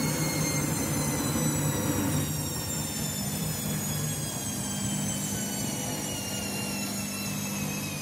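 Candy washing machine in its final spin, the drum motor giving a steady hum under a high whine that falls slowly in pitch as the drum slows.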